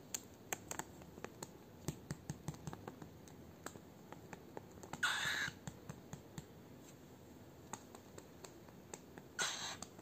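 A young cockatiel's claws clicking and tapping irregularly on a plastic sofa cover as it steps about. Two short noisy bursts break in, one about five seconds in and one near the end.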